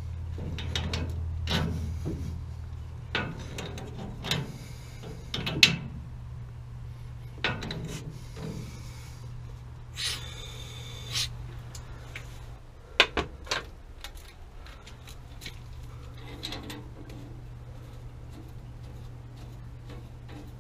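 Hands and tools working on gas piping at a water heater: scattered knocks, clicks and scraping, with a rasping noise lasting about a second about halfway through and two sharp knocks soon after, over a steady low hum.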